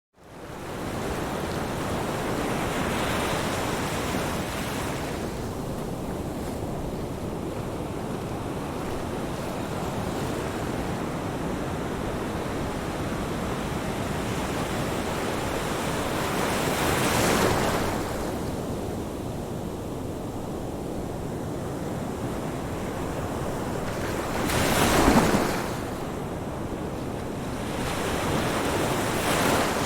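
Ocean surf: a steady rush of waves washing ashore, swelling as individual waves break a few seconds in, at about the middle, and most loudly a little before the end.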